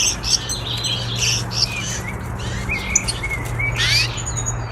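Gouldian finches chirping in many short, quick notes and brief glides, over a steady low hum.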